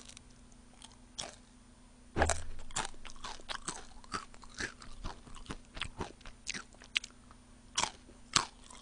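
Close-miked chewing of thick, crunchy potato chips: a loud bite-crunch about two seconds in, then a steady run of sharp crunches as they are chewed.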